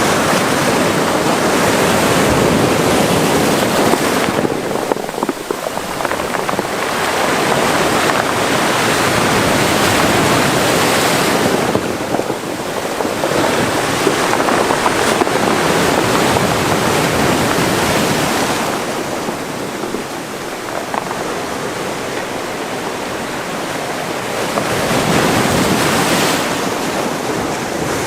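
Mediterranean sea waves breaking and washing onto the shore of a small cove, swelling and easing in slow surges every several seconds.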